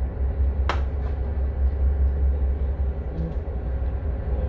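Tour boat's engine running with a steady low rumble, with a single sharp click a little under a second in.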